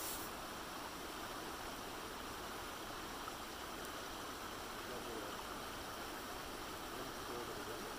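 Shallow rocky river running over stones: a steady rushing of water, the river running high after rain.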